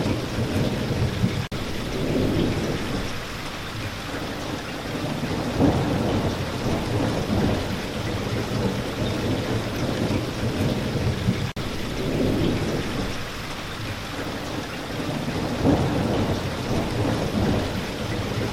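Steady rain falling, with low rolling thunder that swells and fades every few seconds. The sound drops out for an instant twice.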